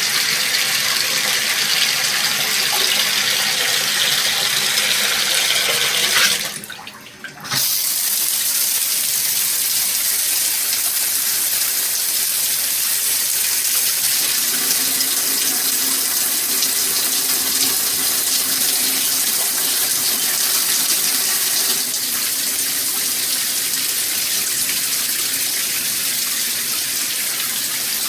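Water spraying hard from a SparkPod pressure-boosting shower head, a steady hiss of spray; it drops out for about a second roughly seven seconds in, then resumes.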